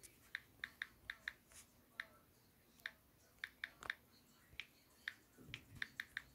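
Light, quick taps on a phone's on-screen keyboard as a word is typed: about eighteen short clicks at an uneven typing pace, some in quick runs.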